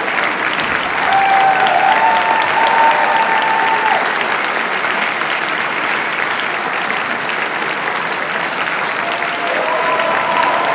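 Large theatre audience applauding steadily during the curtain call, a dense, continuous sound of many hands clapping.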